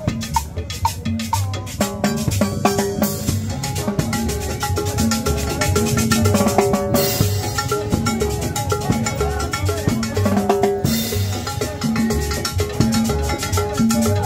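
Live dance band playing upbeat music: a steady drum and percussion beat under held pitched notes.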